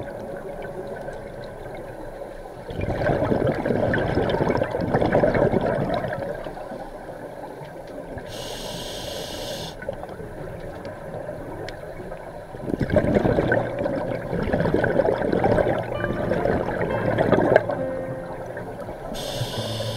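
Scuba regulator exhalation underwater: two long rushes of bubbles, one about three seconds in and one from about thirteen to eighteen seconds, with a short high hiss between them.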